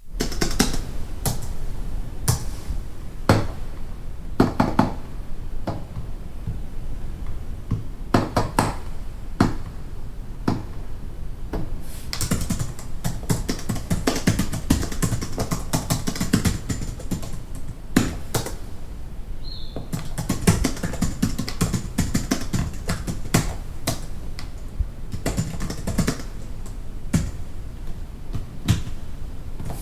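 Fast typing on a computer keyboard heard from a distance: runs of rapid, irregular key clicks broken by short pauses.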